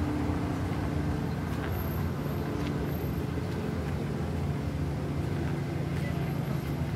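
Steady low engine drone at an even pitch, over a constant wash of city noise.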